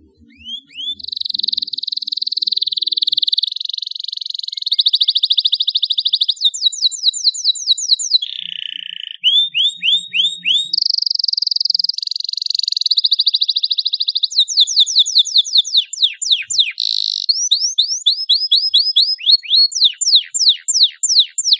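Domestic canary singing a long, loud song: buzzing rolls and fast trills alternating with runs of quick down-slurred notes, pausing only briefly about nine seconds in.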